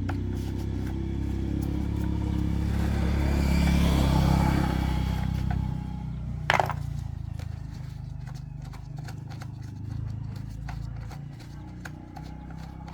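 Electric motor running with a steady low hum that swells to its loudest around four seconds in, then a single sharp click about six and a half seconds in, after which the hum carries on quieter.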